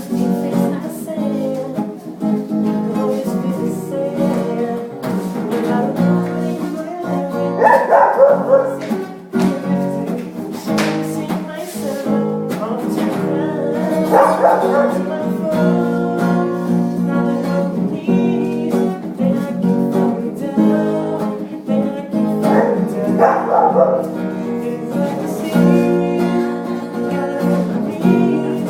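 Acoustic guitar playing steadily, with a dog barking along three times, louder than the guitar.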